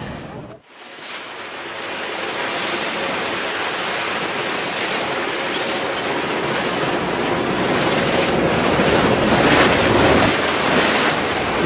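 Steady rush of sea water and wind, with wind buffeting the microphone; it builds up over the first couple of seconds and grows louder near the end.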